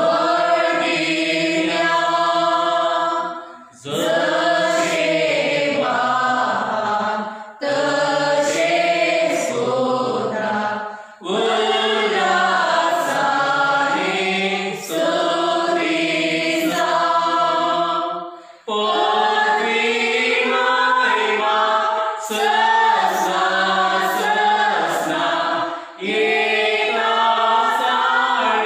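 A group of voices singing a slow devotional hymn in phrases of about three to four seconds, with brief breaks for breath between phrases.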